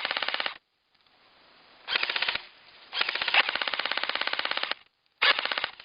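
Airsoft gun firing on full auto: four bursts of rapid, evenly spaced shots, the third the longest at almost two seconds.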